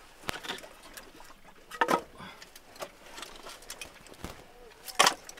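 Split firewood pieces knocking together as they are handled and stacked on a woodpile: a few separate sharp wooden clacks, a louder pair about two seconds in and the loudest near the end.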